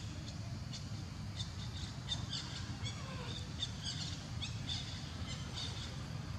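Small birds chirping in the background: a run of short, high repeated notes, over a steady low outdoor rumble.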